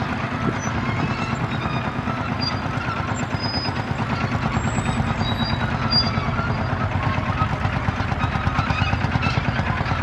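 Vintage farm tractor engines running steadily under load while ploughing, with a fast, even chugging beat.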